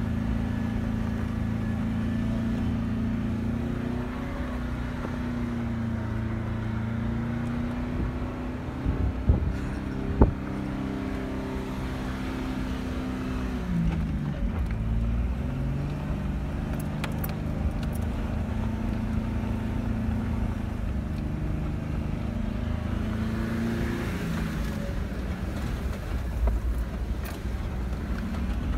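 Jeep engine running as it crawls up a rutted dirt trail, its pitch dropping and picking up again twice with the throttle. Two sharp knocks come about ten seconds in, and light ticks near the end as brush scrapes along the side.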